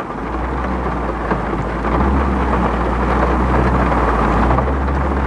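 Heavy rain drumming on the roof and windows of a car, heard from inside the cabin, over a steady low rumble.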